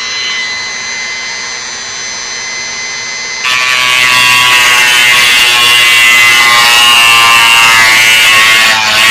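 Dremel rotary tool running at low speed with a steady whine. About three and a half seconds in it gets much louder and rougher, its pitch wavering, as the sanding bit bites into the polymer rifle stock to widen the barrel channel for free floating.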